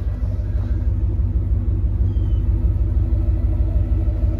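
A 7.3-litre gas V8 in a Ford F-550 idling steadily: an even low rumble with a constant hum above it.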